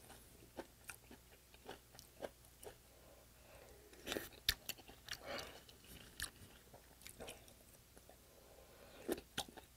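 Close-miked, quiet chewing and wet mouth sounds of a person eating spoonfuls of rice in broth, with scattered short clicks and lip smacks, a little busier about four seconds in and near the end.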